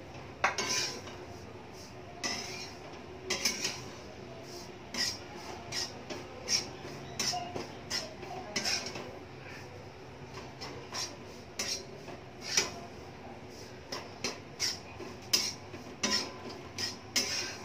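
Metal spatula scraping and clinking against a non-stick frying pan as ground chana dal is stirred and roasted until it darkens. Irregular scrapes and clicks come about once or twice a second.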